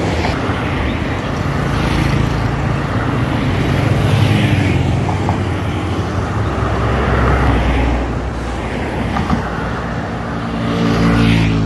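Road traffic passing close by: cars, a minibus and motorcycles going past in turn, their engine and tyre noise swelling and fading about three times, with an engine hum loudest near the end.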